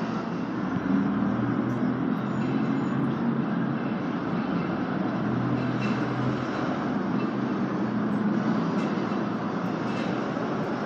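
Steady rumble of trains on an elevated subway structure mixed with street traffic below, as an R160 subway train approaches from the distance. Low hums swell and fade now and then.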